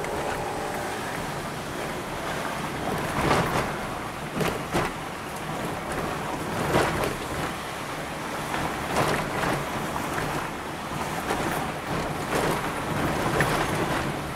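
Car interior while driving slowly: the engine and tyres run steadily on a rough, patched road surface. About half a dozen short knocks and rattles come as the car goes over bumps.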